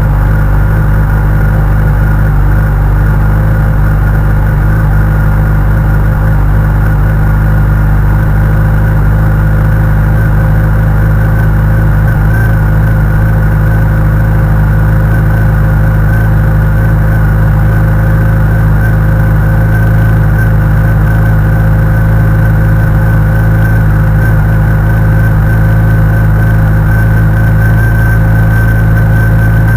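Honda CBR1100XX inline-four engine idling steadily after a cold start, with its cam chain tensioner newly replaced.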